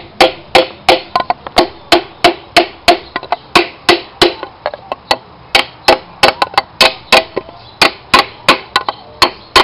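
Rapid hammer taps on a wooden block, about three a second and each with a short ring, driving a piston with new rings through a ring compressor into the cylinder bore of a VW Pointer 1.8 engine block.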